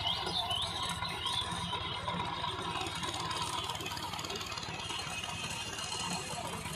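Sonalika DI 50 RX tractor's diesel engine running steadily with a pulsing low rumble. A few short high squeaks come in the first second or so.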